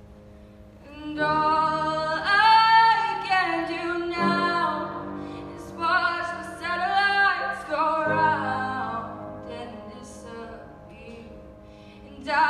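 A young woman singing solo while accompanying herself on a grand piano, in a large hall. New piano chords come in about a second in, again about four seconds in and about eight seconds in, under her sung phrases.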